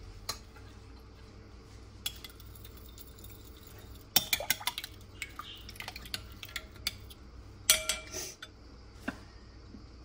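Metal spoon beating raw eggs in a glass bowl, clinking and scraping against the glass in irregular bursts, loudest about four and eight seconds in.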